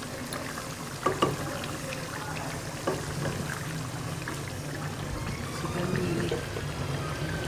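Wooden spatula stirring a simmering round-gourd and chicken curry in a nonstick wok, the thick gravy making wet, liquid sounds, with a few sharp taps of the spatula on the pan about a second in and again near three seconds.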